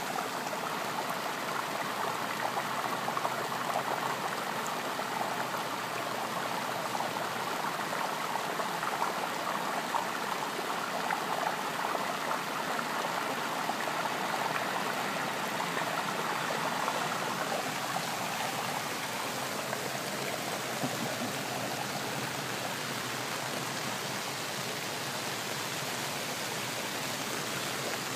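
Floodwater rushing across a roadway and pouring over a concrete median curb: a steady, continuous wash of moving water, a little softer in the second half.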